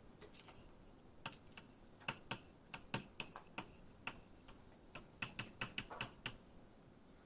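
Chalk writing on a blackboard: faint, irregular taps and clicks as the chalk strikes the board letter by letter, stopping a little before the end.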